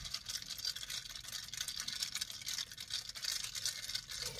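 A plastic straw stirring a matcha latte in a clear plastic cup. It makes a fast, continuous scratchy rattle.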